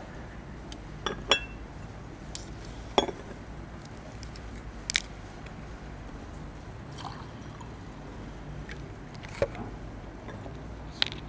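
A handful of short, sharp clicks and clinks, a few seconds apart, over a steady low hum of room noise.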